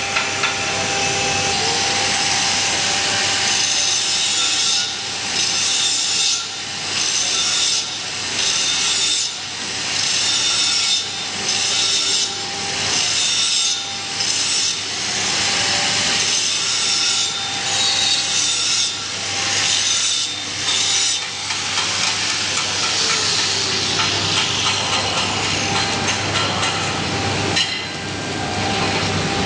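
Electric arc welding on a pipe: the arc crackles and hisses, dipping briefly about every second and a half through the middle, over a low steady hum.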